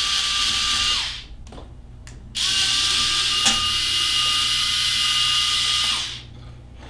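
Ryobi mini electric screwdriver whining in two runs, first for about a second, then for about three and a half seconds, as it backs out the two screws holding a 3D printer's hot end. There is a short click partway through the second run.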